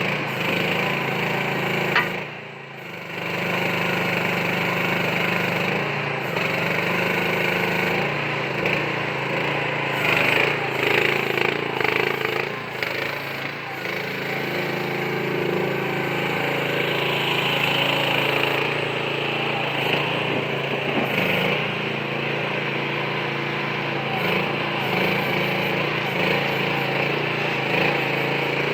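Small diesel engine of a CFG MX15RX 1.5-ton mini excavator running steadily. It dips briefly about two seconds in and rises and falls unevenly in the middle.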